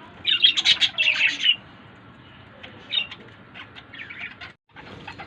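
Flock of pet parakeets chirping: a loud burst of rapid, high chirps in the first second and a half, then scattered quieter chirps.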